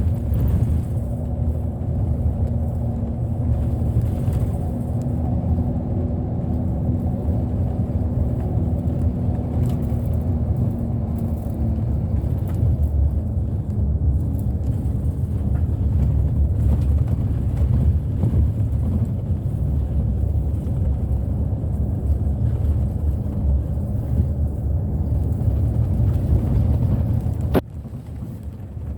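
Route bus running on the road, heard from inside the cabin: a steady low rumble of engine and road noise, with an engine tone held for the first dozen seconds. Near the end a sharp click, after which it goes briefly quieter.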